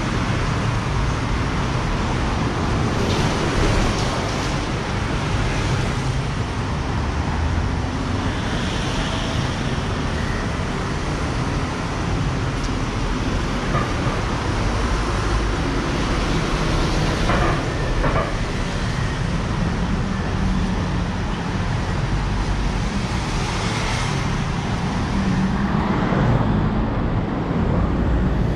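Busy city road traffic: a steady, continuous rumble of passing vehicles' engines and tyres.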